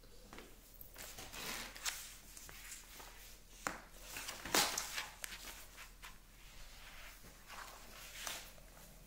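Paper pages of a printed workbook being turned and handled on a table: faint rustles and light knocks, the sharpest about three and a half and four and a half seconds in.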